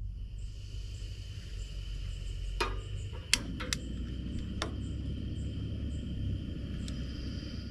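Two-burner propane camp stove being lit: the gas comes on with a steady hiss, and a few sharp clicks sound as the burner catches, after which it burns on with a steady hiss.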